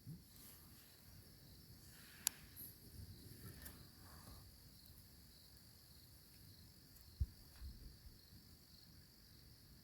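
Faint steady chirring of insects in the bush, with two brief sharp clicks, one about two seconds in and another about seven seconds in.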